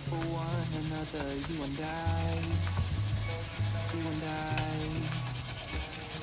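Steady scraping and rubbing from kitchen work, over background pop music with a steady bass line.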